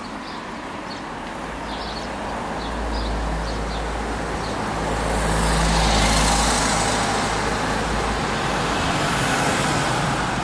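Street traffic: a vehicle passes, its engine rumble and tyre noise building to a peak about six seconds in and then easing. A few faint bird chirps sound in the first two seconds.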